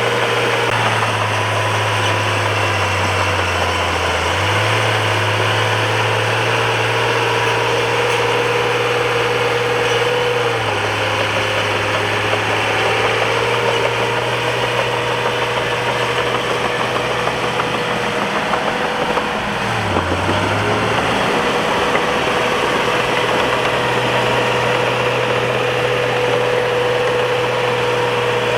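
Bulldozer's diesel engine running steadily under work, its speed sagging and picking back up three times.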